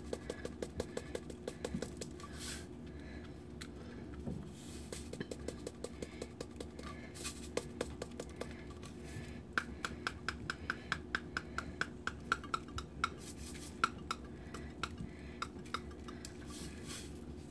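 Salt shaker being shaken over a plastic measuring spoon: a long run of light clicks and rattles, at times in quick regular trains of about five a second.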